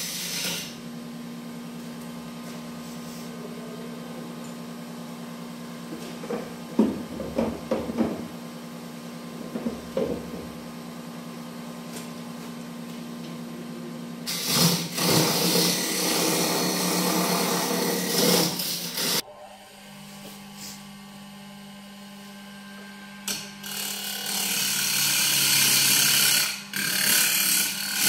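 Wood lathe motor running with a steady hum while a tool works the spinning walnut blank in two long spells of loud, hissy cutting, with a few knocks early on. About two-thirds through, the hum drops lower and quieter.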